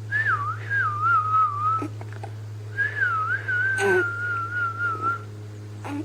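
A person whistling in two wavering phrases, each starting high and dipping, the second longer. A brief sharp sound comes about four seconds in.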